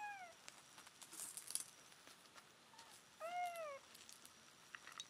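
Nine-day-old kittens mewing: a short high mew at the start and a longer, louder one about three seconds in, each rising and then falling in pitch. Soft scratching and rustling between the calls.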